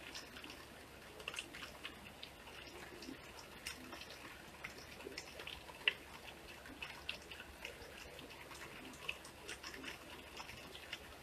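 Light rain: scattered, irregular drops and drips ticking over a faint steady hiss, with one louder drip about six seconds in.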